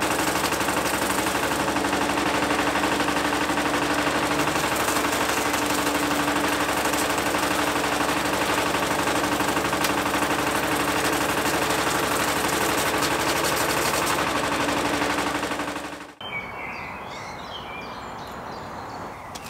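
Powered pole-peeling machine running as it strips the bark from a coppiced chestnut pole, a loud steady rapid chatter over a motor hum. It cuts off suddenly about sixteen seconds in.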